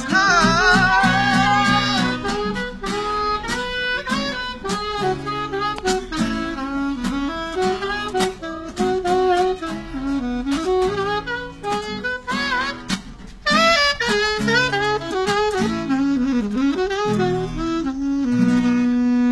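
Tenor-range saxophone playing a flowing melody over an acoustic guitar's chord accompaniment, with no singing.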